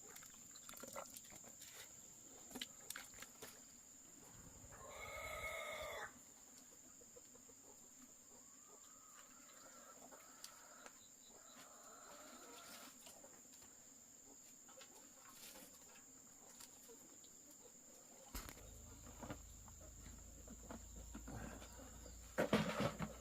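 Chickens clucking, with one longer call about five seconds in that is likely a rooster crowing, over a steady high insect drone. A few sharp knocks come near the end.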